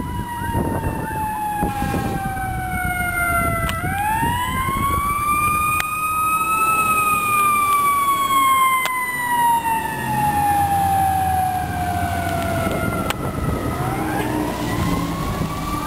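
Fire engine siren sounding a slow wail. Its pitch climbs quickly about four seconds in, sinks slowly for several seconds, then climbs again near the end, over a low rumble.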